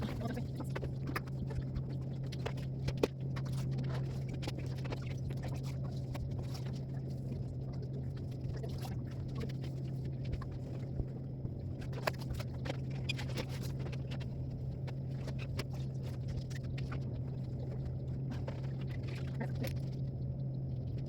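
Irregular scraping, rubbing and small knocks of a fridge's interior being scrubbed clean, over a steady low hum.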